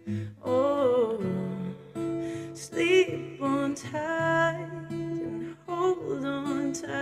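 A voice singing a slow, improvised melody with long, wavering held notes over a strummed acoustic guitar.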